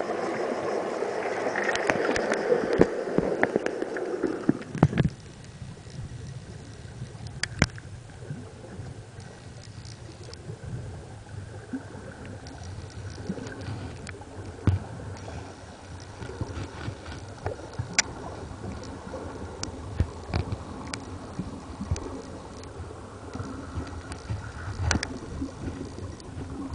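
Water heard from underwater: a muffled churning wash for the first five seconds, then a quieter low rumble of moving water with scattered sharp clicks.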